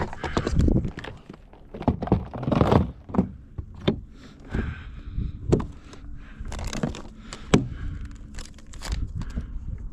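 A series of irregular knocks and thunks mixed with rustling and crinkling.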